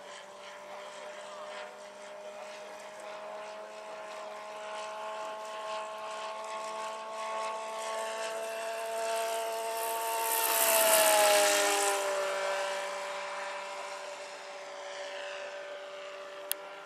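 Large electric scale model BO-105 helicopter (about 1.5 m rotor) in flight: a steady whine from its electric motor and rotors. It grows louder to a peak about eleven seconds in, where the whine drops in pitch, then fades. A single sharp click near the end.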